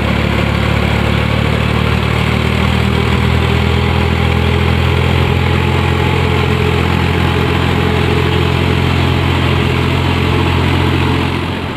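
Farm tractor engine running steadily in a low, even drone while the tractor puddles a flooded paddy field. The sound drops away suddenly near the end.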